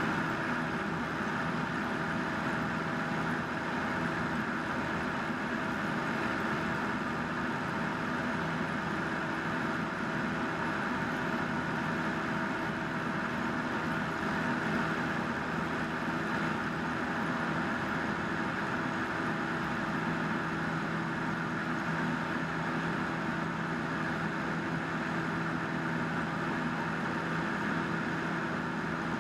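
Single-engine light aircraft's piston engine and propeller droning steadily in cruise, heard from inside the cabin, with rushing airflow.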